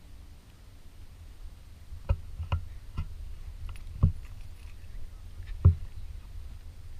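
Padded foam boffer swords striking shields and each other in sparring: a run of dull thwacks, three close together about two to three seconds in, then a heavier one about four seconds in and the loudest near the end.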